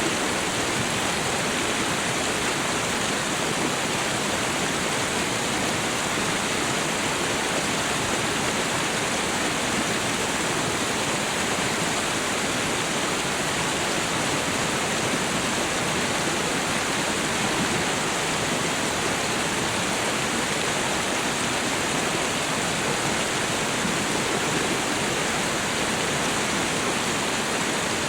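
Meltwater stream and small waterfall rushing steadily, a constant even hiss of flowing water.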